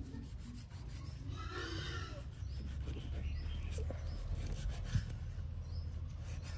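Knife drawn along the backbone of a hairtail fish to fillet it: a soft rubbing, rasping scrape of the blade through the flesh, with a few light taps, over a steady low rumble.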